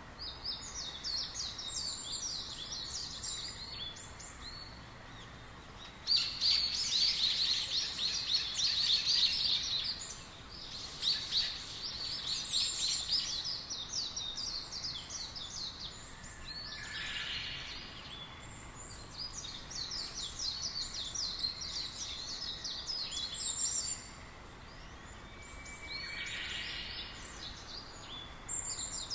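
Small songbirds chirping in fast, high-pitched twittering runs that come in bouts with short pauses, the loudest bout starting suddenly about six seconds in, over a faint steady background hiss.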